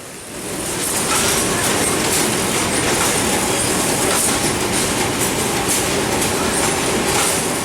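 Tobacco-leaf destemming machine running, a steady mechanical rattle as leaves are fed through to strip out the central vein. It swells about half a second in and eases off near the end.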